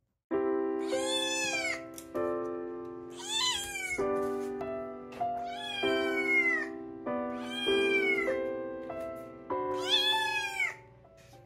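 A cat meows five times, about two seconds apart, each meow rising and then falling away. Steady background music of held chords plays underneath.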